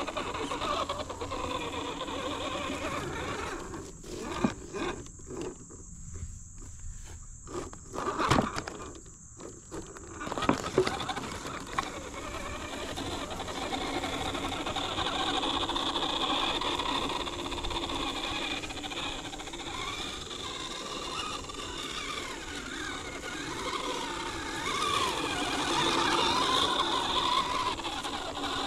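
Brushed 540 electric motor and gear drivetrain of a 1/10-scale RC rock crawler whining at crawling speed, its pitch rising and falling with the throttle. From about 4 to 10 seconds in it runs in short stop-start bursts with brief pauses, then runs on again.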